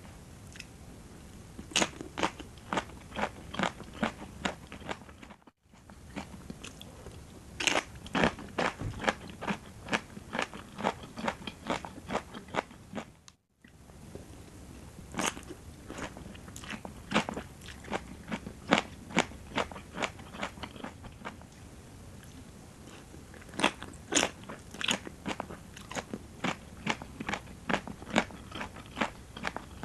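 Close-miked chewing and biting of a rice noodle and raw vegetable salad: rapid, crisp crunches, with the sound cutting out for a moment twice.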